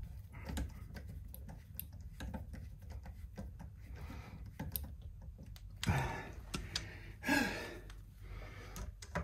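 Hand screwdriver driving small tuner screws into a wooden guitar headstock, making a run of light, irregular clicks. Two louder rustling sounds come about six and seven seconds in.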